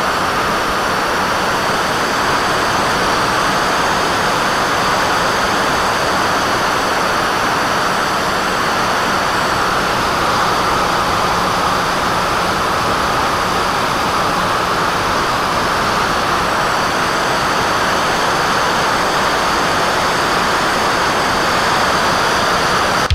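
HK BFG model glider's motor and spinning propeller running steadily under power, mixed with rushing air, picked up by a camera mounted on the plane. A thin steady high whine sits over the noise, which holds an even level throughout.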